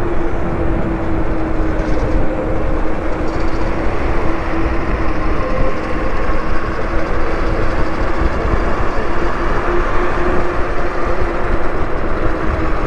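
Wind rushing over the microphone on a moving electric motorbike, with the motor's steady whine running underneath.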